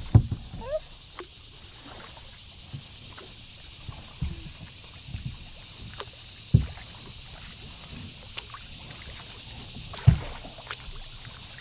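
Kayak being paddled on calm water: paddle splashes and drips, with a few sharp knocks, the loudest about six and a half and ten seconds in.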